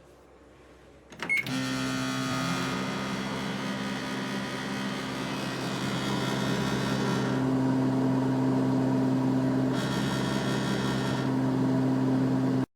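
Countertop microwave oven: a click and short beep, then the oven runs with a steady electrical hum and fan whir. The hum stops abruptly near the end.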